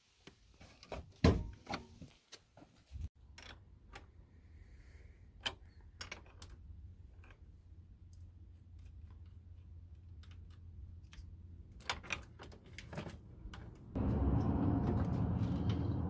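Scattered metal clicks and clinks of a combination wrench on a car battery's terminal clamp bolt as the cable is loosened and lifted off the post to disconnect the battery. A louder steady noise comes in near the end.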